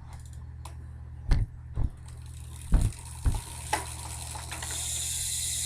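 A few dull thumps from a BMX bike being handled. About a second from the end, its rear hub starts a fast, steady freewheel buzz of ratcheting clicks as the rear wheel spins freely.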